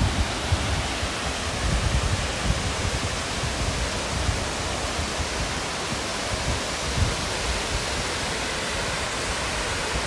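Steady rush of a four-tier, 40-metre waterfall and the rocky stream below it: an even, unbroken hiss of falling water.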